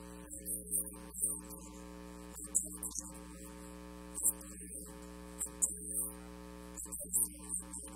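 Steady electrical mains hum, a low buzz with several steady tones, with brief, irregular hissy bursts over it.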